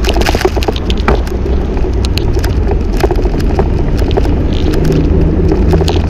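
Riding noise from a camera on a moving bicycle in city traffic: a steady low rumble of wind and road on the microphone, with frequent small clicks and rattles.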